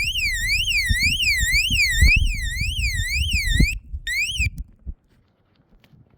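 Motorbike alarm rigged as a tripwire bear alarm on food barrels, set off by moving the barrel harness: a loud electronic siren sweeping up and down about two and a half times a second. It cuts off a little under four seconds in, sounds again for half a second, then stops as its pin is put back in.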